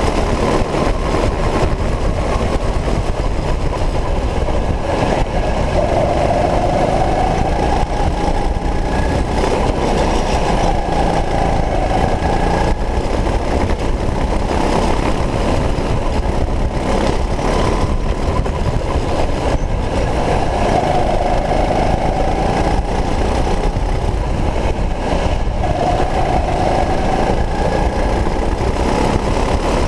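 Go-kart engine running at race speed, its pitch climbing several times as the kart accelerates out of the corners, over a steady low rumble.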